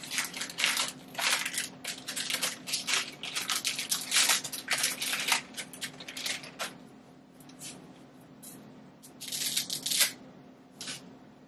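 Dry spaghetti being snapped in half by hand: rapid dry cracking and crackling for about six seconds, then a few separate snaps near the end. A faint steady low hum runs underneath.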